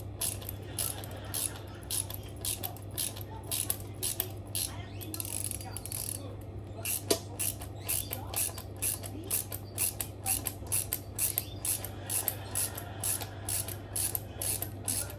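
Ratchet wrench clicking in quick runs of strokes while undoing the brake-disc bolts on a motorcycle wheel, with a short pause about midway. A steady low hum runs underneath.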